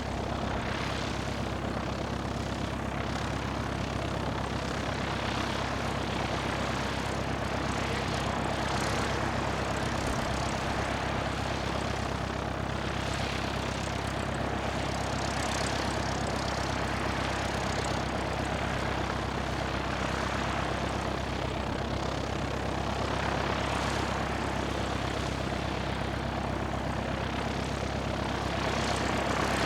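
Cessna 172R's four-cylinder Lycoming engine and propeller running steadily at low power, heard from inside the cockpit.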